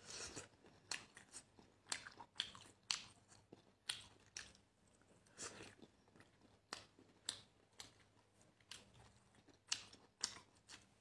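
A person chewing and biting skewered sea snail meat close to the microphone: faint, irregular short mouth clicks and bites, about one or two a second.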